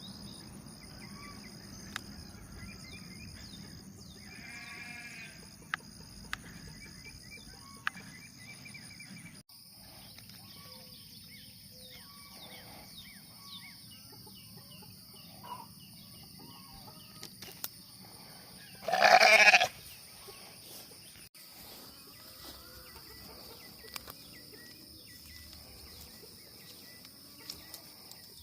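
Sheep bleating: one loud bleat of about a second roughly two-thirds of the way through, and a fainter one earlier, over a steady high insect chirring and scattered small clicks.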